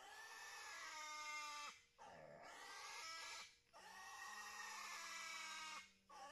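Piglet squealing in distress while held down for castration: a run of long, high-pitched screams of one to two seconds each, broken by short pauses for breath, with another starting near the end.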